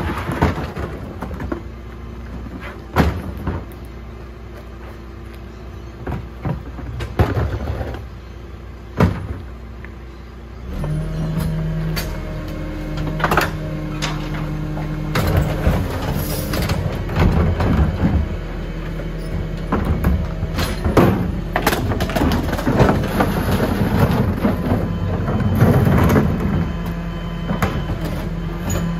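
Garwood rear-loader garbage truck at work. First there are sharp clunks of wheelie bins being knocked onto the bin lifter. About a third of the way in, the truck's hydraulics engage with a steady raised engine hum, while the lifter tips three bins and rubbish clatters into the hopper and the packer blade cycles.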